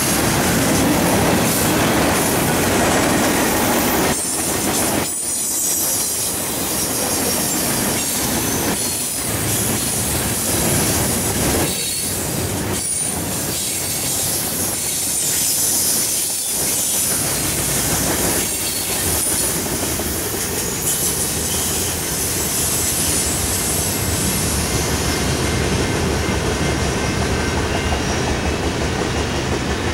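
Freight train cars rolling past on the rails, their wheels squealing and clattering. Near the end the high squeal fades and the rumble turns duller.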